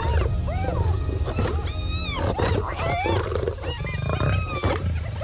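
Spotted hyenas calling with many short squeals and whoops that rise and fall in pitch, over continuous low growling from lions.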